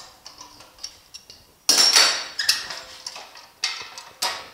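Steel C-clamps being worked loose and taken off a steel tube clamped to a sheet-metal bumper apron: a few small clicks, then a loud metal clank about two seconds in that rings briefly, followed by more clanks near the end.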